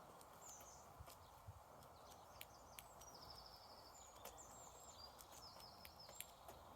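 Faint chirps and short trills of small birds, with scattered sharp taps over a steady low background hiss.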